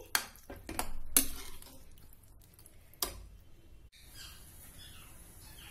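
Metal spatula stirring and knocking against a steel kadhai of watery pea-and-khoya curry: a few sharp clicks in the first second or so and one more knock about three seconds in, then only faint background.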